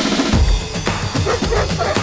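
Music with drums, beating steadily.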